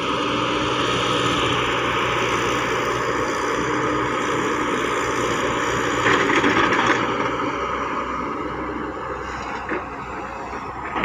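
Caterpillar E120B excavator's diesel engine running steadily under load with a steady whine as the machine digs and swings. About six seconds in a louder rush lasting about a second as the bucket tips its load of soil, and a couple of short knocks near the end as the bucket goes back into the pit.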